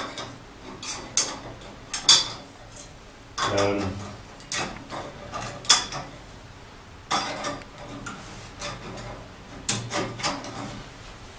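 Parts of a portable cooking stove's stand clicking and knocking as they are fitted and clipped together by hand: about a dozen separate sharp knocks at uneven intervals, a few with a short ring.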